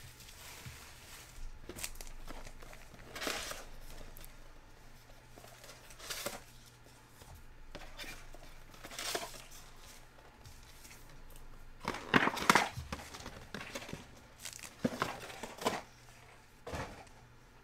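A cardboard hobby box of Panini Legacy football cards being opened and its wrapped card packs pulled out and set down in stacks: a series of short rustles and scrapes of cardboard and pack wrappers, the loudest about twelve seconds in.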